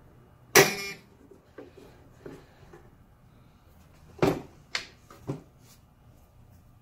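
Delta 10-inch compound miter saw being moved by hand with the motor off, its metal parts knocking against their stops. There is a loud, ringing metal clank about half a second in, a few light knocks after it, and three more clanks between about four and five and a half seconds in.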